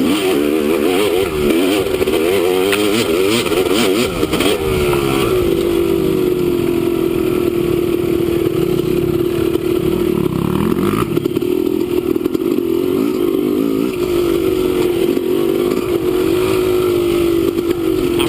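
Dirt bike engine riding along a trail, its pitch rising and falling with quick throttle changes for the first five seconds or so, then holding a fairly steady pitch, with some clatter.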